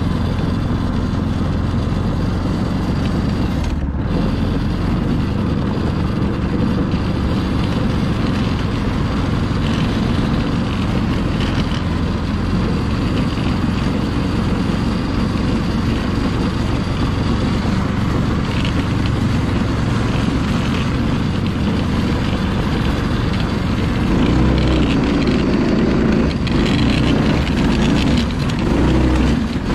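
Yerf-Dog 3203 go-kart's small gas engine running steadily as the kart drives through snow. It gets louder for a few seconds near the end.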